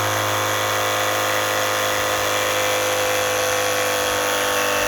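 Spyra Two water gun's electric pump running steadily as it draws water in to refill the tank.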